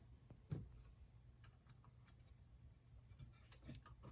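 Near silence with a soft knock about half a second in and a few faint clicks: small parts being handled on the navigation unit's circuit board while its ribbon-cable latch is released.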